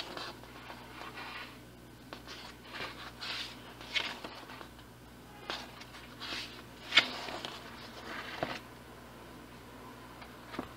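Pages of a softcover comic book being turned by hand: about seven short papery swishes and rustles, a second or so apart.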